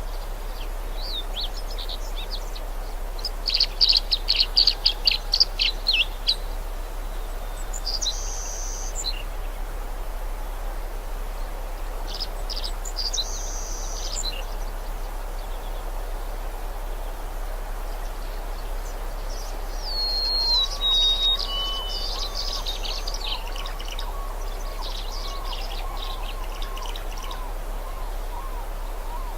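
Small birds chirping and trilling over a steady rushing background hiss: a burst of rapid trills about four seconds in, short chirp phrases every few seconds, and a clear downward whistle about twenty seconds in followed by more chattering calls.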